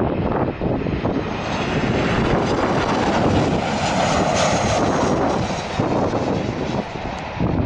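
Airliner's engines passing as a steady rushing noise, at its fullest about halfway through and easing off near the end.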